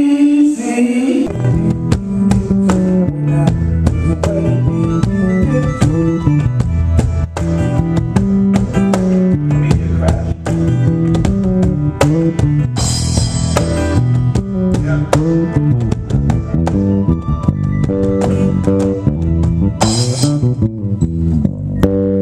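A live band playing during a sound check: drum kit, bass guitar and guitar, with a cymbal crash about thirteen seconds in and another near the end.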